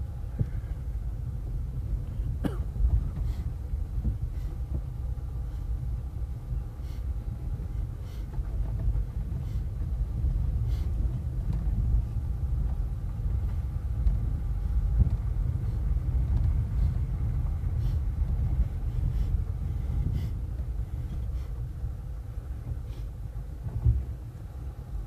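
Road rumble inside a car's cabin as it drives slowly over a rough dirt road, with scattered clicks and rattles from bumps every few seconds, the sharpest about two and a half seconds in.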